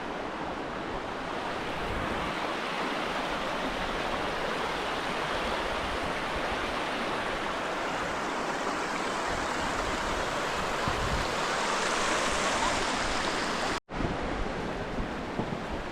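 Steady rush of flowing water, swelling slightly before an abrupt break near the end.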